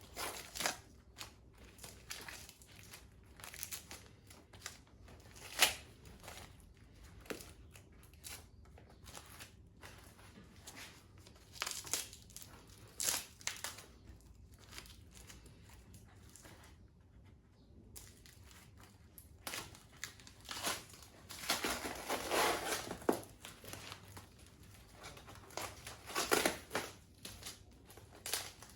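Shrink wrap and masking tape being crinkled and torn away as a freshly laid-up fiberglass seat base is taken apart from its foam buck: irregular rustling and ripping with scattered sharp snaps, busiest about three-quarters of the way through.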